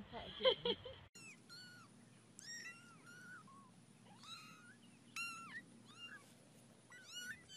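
A couple of short muffled sounds in the first second, then very young kittens mewing over and over: about a dozen thin, high-pitched, arching mews.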